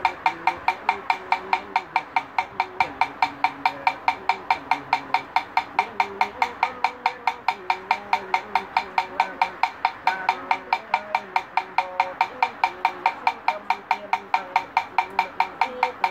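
Buddhist wooden fish (mõ) struck in a fast, perfectly even beat, about four to five knocks a second, each with a hollow ringing tone. A low chanting voice drones underneath, following the beat.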